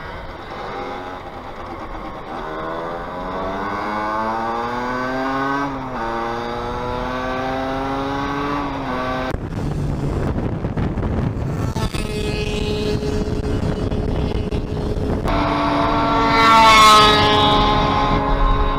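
Small two-stroke motorcycle engines revving hard through the gears: the pitch climbs, drops sharply at each shift and climbs again. The sound changes abruptly twice, and near the end a high rising whine is the loudest part.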